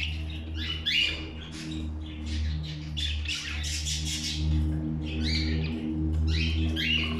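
Budgerigars chirping and squawking in many short calls, over a steady low hum.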